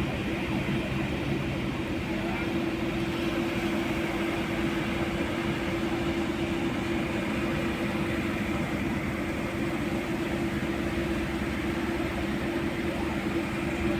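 Steady hum of a moving road vehicle, an unchanging drone with road noise underneath.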